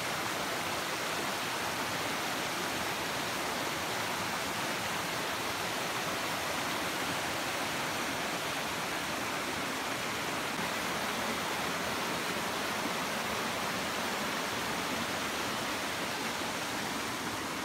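Rushing mountain brook tumbling over rocks: a steady, even rush of water.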